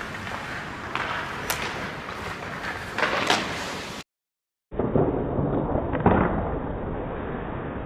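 Ice rink noise with sharp knocks of pucks and sticks striking the ice and boards during shootout shots. The sound cuts out briefly about four seconds in and comes back duller.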